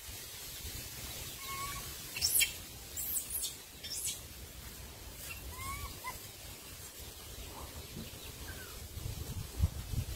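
Birds calling in the surrounding trees: short, scattered chirps and a few shrill, quick high calls, over a low rumble of wind or handling on the microphone, with a couple of soft thumps near the end.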